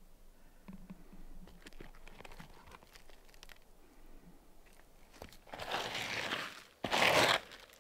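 A gloved hand scraping dry pine needles and debris off gritty asphalt roof shingles. Faint crackles come first, then two loud crunching rustles from about five and a half seconds in.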